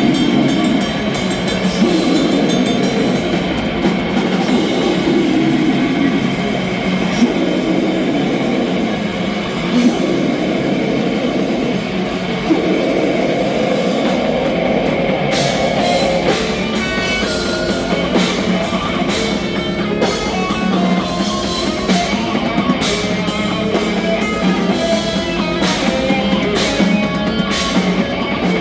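Death metal band playing live: distorted electric guitars and a drum kit, steadily loud and dense. The riff changes about halfway through, with sharper, more separated drum and cymbal strokes.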